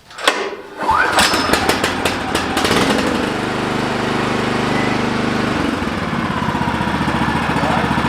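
The Wood-Mizer LX55 sawmill's small gasoline engine starting up about a second in and then running steadily, with a rattle of sharp ticks in the first couple of seconds and a change in its running note a little past halfway.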